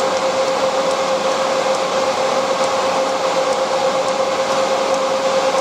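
Cooling fans of a 2 kW compact FM broadcast transmitter running: a steady whoosh with a constant hum, and a few faint clicks as its front-panel buttons are pressed.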